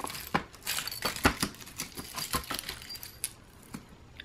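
Pieces of costume jewelry clinking and clicking against each other as they are sorted by hand: a quick run of small metal clicks in the first couple of seconds, thinning to a few scattered ones after.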